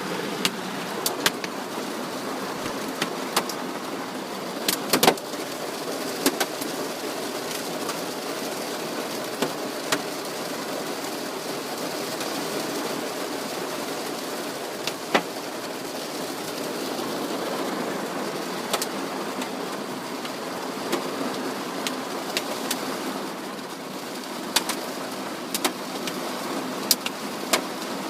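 Hail falling on a vehicle: a steady patter of stones with sharp, irregular knocks as bigger hailstones strike the bodywork.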